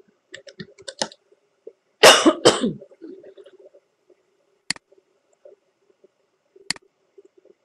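A few quick keystrokes on a computer keyboard, then a person coughing to clear their throat, two loud bursts about two seconds in. Later come two single sharp mouse clicks, a couple of seconds apart.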